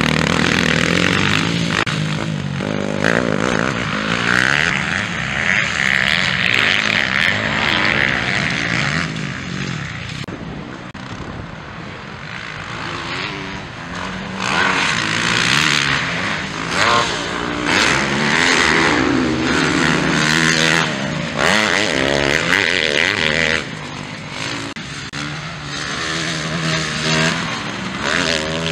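Motocross bike engines racing, revving up and down as riders accelerate and back off through corners and jumps. The engine sound fades somewhat about a third of the way in and again near the end as bikes pass.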